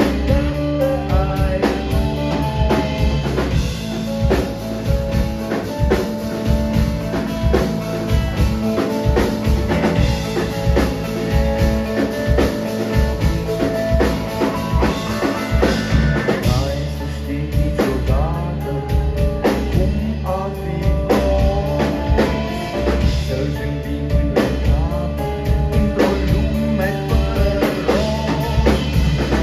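Rock band playing a song with a steady drum beat and heavy bass under sustained instrument lines, with singing at times.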